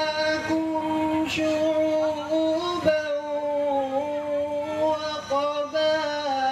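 A man's voice reciting the Quran in a melodic chant, holding long notes with small turns in pitch and pausing briefly for breath about three seconds in.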